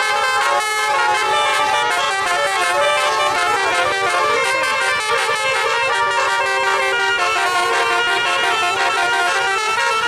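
Multi-tone 'telolet' air horn on a tour bus, its roof-mounted trumpets sounding several notes together. It plays continuously as a tune, and the notes shift every so often.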